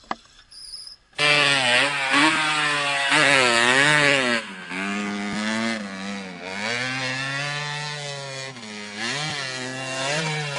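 Dirt bike engine revving hard, its pitch rising and falling over and over with the throttle; it comes in loud about a second in, after a single sharp click.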